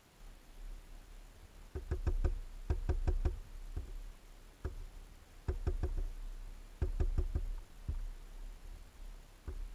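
A small bird pecking at a hanging seed feeder: sharp knocks in quick runs of three or four, with single knocks in between.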